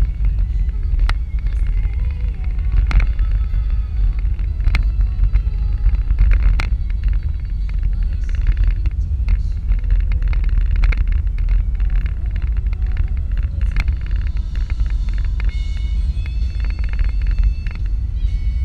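Car interior at freeway speed: a steady low rumble of road and engine noise, with occasional sharp clicks and rattles.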